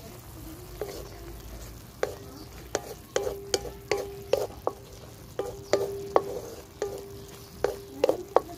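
Wooden spatula stirring pork strips in an aluminium wok, knocking and scraping against the pan in irregular strokes from about two seconds in, with the metal ringing steadily between strokes. The pork sizzles softly underneath as it fries.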